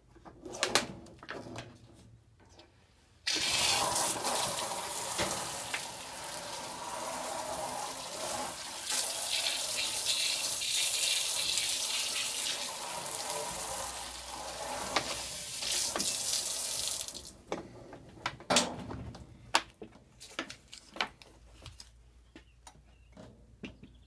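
Water running from a hose into a top-loading washing machine's emptied wash bowl, a steady rush that starts about three seconds in and stops about seventeen seconds in. Scattered knocks and clicks of the machine being handled come before and after it.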